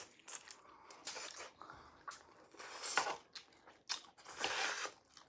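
Close-miked chewing and mouth sounds of someone eating sausage chow mein: short wet clicks and smacks, with louder noisy bursts about three seconds and four and a half seconds in.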